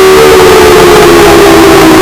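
Very loud, distorted synthesized alarm tones stepping down in pitch over a wash of noise, the closing tone of a mock emergency alert system (EAS) alarm.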